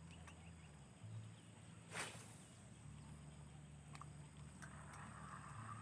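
Fishing rod being cast for snakehead: a single quick whoosh of the rod and line about two seconds in. Then come a couple of small clicks and a faint whir from the reel near the end, over a faint low hum.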